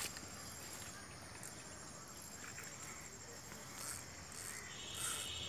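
Faint insects chirping in the background, with a steady high trill coming in near the end.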